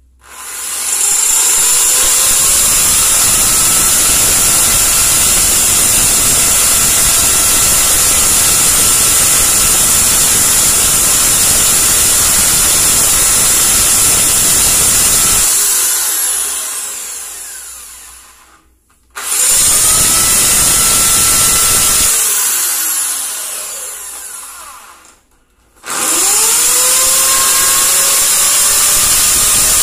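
Corded electric drill boring into ceramic wall tile with a 5.5 mm masonry bit. It runs steadily for about fifteen seconds, then winds down with its pitch falling. It starts again, runs for a few seconds and coasts down once more, then starts a third time.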